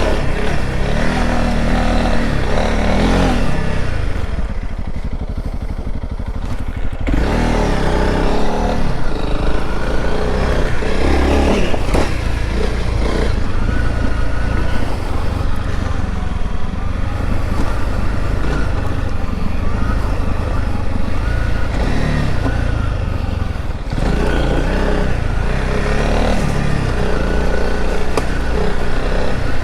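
Honda CRF300L Rally's single-cylinder engine running under load on an off-road trail, its note rising and falling with the throttle. It eases off about four seconds in and picks up again about seven seconds in.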